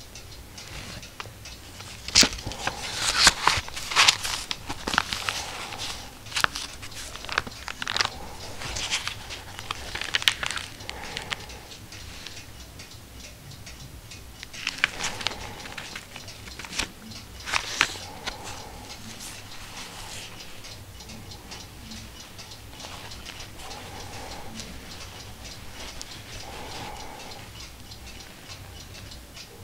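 Stiff old paper of a 1709 book crackling and rustling as its leaves and a folded engraved plate are handled and turned, in short bursts with sharp crackles, dying down to light handling about two-thirds of the way through.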